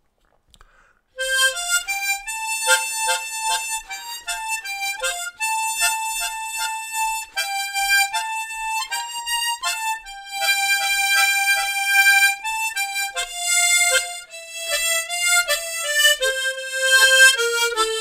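A harmonica in the key of F playing a slow melody phrase, starting about a second in, with short rhythmic bass-chord stabs under the melody notes.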